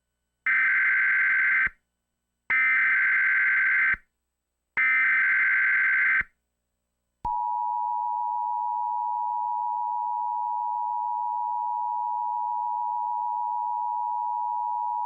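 Emergency Alert System SAME header: three short bursts of warbling data tones, each about a second long. About seven seconds in, the steady two-tone EAS attention signal comes on and holds. Together they mark the start of an emergency alert, here a test tornado warning.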